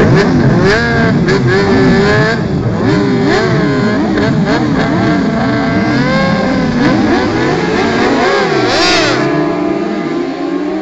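Several racing motorcycle engines running at once, revving up and backing off over and over, so their pitch keeps rising and falling with throttle and gear changes. Near the end a single steadier tone, slowly rising, takes over.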